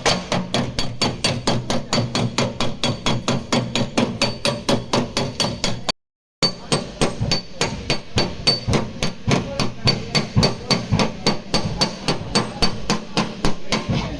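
Rapid, evenly spaced hammer blows on car body sheet metal, about four to five a second, with a light metallic ring: panel-beating a dented rear quarter panel. The hammering breaks off briefly about six seconds in, then carries on at the same pace.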